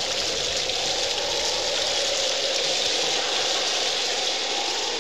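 A steady, even rushing noise, water-like, with no speech or music.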